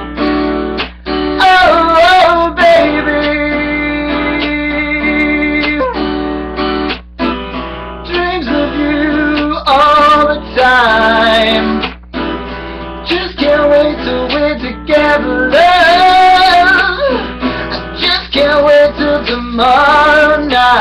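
Acoustic guitar strummed in a steady rhythm while a man sings along in phrases that come and go.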